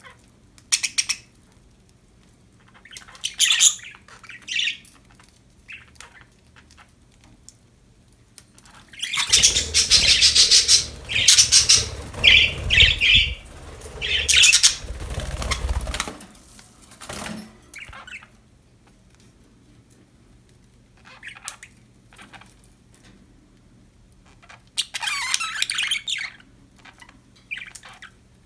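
Budgerigars chirping and squawking in short, scattered calls. There is a louder, busier stretch of several seconds in the middle, and a faint steady hum underneath.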